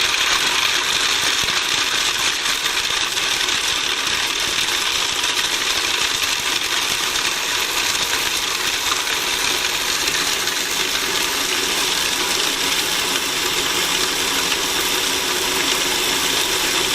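Food processor running steadily, its blade grinding whole almonds, walnuts and cashews into a coarse meal.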